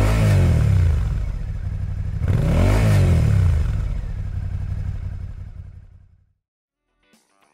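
Suzuki SV650's 645 cc V-twin breathing through a Yoshimura R-77J Cyclone slip-on muffler, revved twice in neutral from idle to about 5,000 rpm, the revs rising and dropping back each time. It then idles before fading out about six seconds in.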